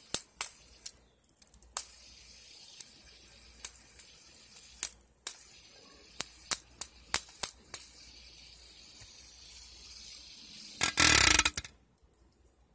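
Sharp, irregular clicks and taps as a plastic fidget spinner is handled and flicked. About eleven seconds in comes a loud buzzing rattle, under a second long, as the spinning fidget spinner is pressed against an aluminium can; it dents the can rather than cutting it.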